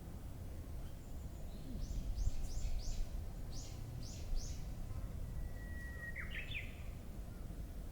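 A run of about seven quick, high downward-sweeping chirps from a bird. Then a Japanese bush warbler (uguisu) gives its song: one long, steady whistled note followed by a quick rising flourish, the 'hoo-hokekyo'. A steady low rumble underlies it throughout.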